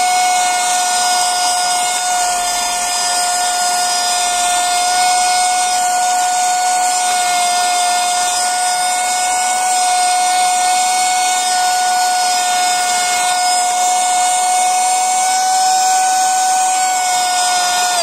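Vacuum cleaner running steadily: a constant motor whine over the rush of air drawn in through the nozzle.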